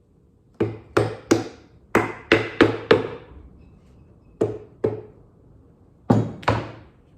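Hammer striking nails into a wooden birdhouse: a run of three blows, a run of four, then two pairs, each a sharp knock on wood.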